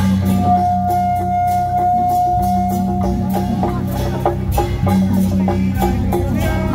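Traditional beiguan procession music: a wind instrument holds one long high note for a couple of seconds, then plays shorter notes, over steady drumming and regular gong and cymbal strokes.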